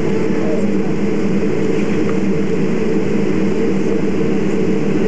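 Airliner engines running, heard from inside the passenger cabin as a loud, steady low drone.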